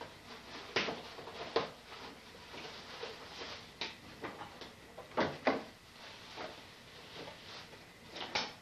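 Paper and cardboard gift boxes being handled and opened: rustling with about half a dozen short crackles and knocks.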